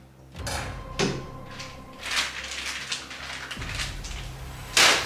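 Black plastic garbage bag rustling and crinkling as it is handled and shaken open, in several separate bursts, with one loud swish just before the end.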